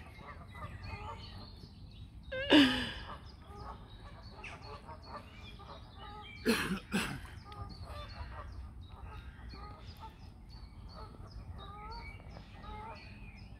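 Birds chirping and calling throughout, with two louder, brief calls about two and a half and six and a half seconds in.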